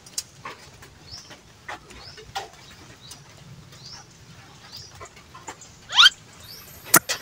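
Chickens calling in a farmyard: scattered short chirps rising in pitch, with one louder rising call about six seconds in and a sharp click near the end.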